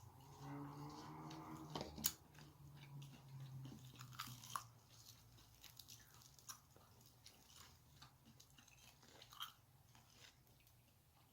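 A person chewing and crunching food close to the microphone, with scattered short crunches and clicks. The sharpest click comes about two seconds in. A low hummed voice sounds during the first two seconds.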